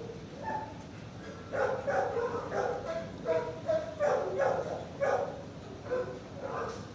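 Shelter dogs barking and yipping. After a quieter first second and a half, short barks follow one another quickly, about two or three a second.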